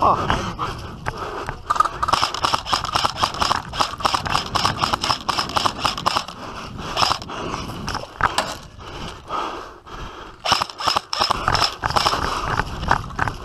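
A player running across grass carrying an airsoft rifle: footfalls and gear rattling in rapid, irregular clicks and scrapes, busiest about ten seconds in.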